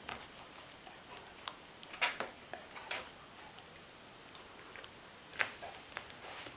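Irregular light scuffles and clicks from a kitten and a large dog tussling at play, with a few louder scuffs about two, three and five and a half seconds in.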